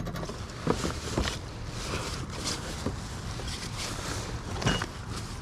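Steady outdoor noise with wind on the microphone, broken by a few light knocks and rustles as items in a curbside pile are handled.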